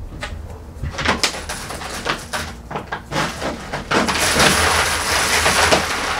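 Metal coins clinking and clattering as hands dig them out of a cut-open plastic jug packed with coins and spill them onto a table, with the plastic jug crinkling under the hands. The clatter grows denser and louder about four seconds in as more coins pour out.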